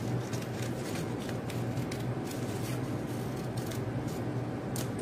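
Scissors snipping through a sheet of paper, with short crisp cuts at an irregular pace, over a steady low hum.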